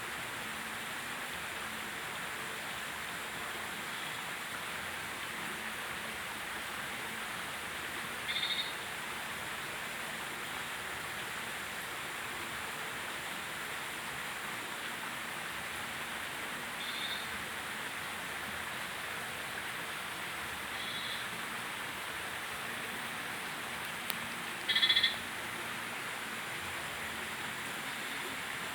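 A steady, even outdoor animal chorus hissing in the background, with a few short, high bird calls over it, the loudest near the end.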